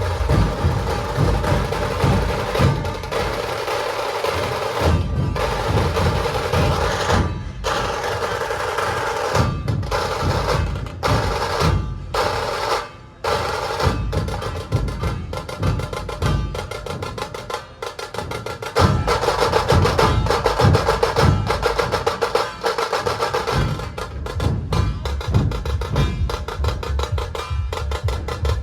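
Dhol tasha ensemble playing: many large dhol barrel drums beating together under rapid rolls on the small tasha drums. The drumming stops sharply for a moment a few times in the first half, then comes back louder about two-thirds of the way in.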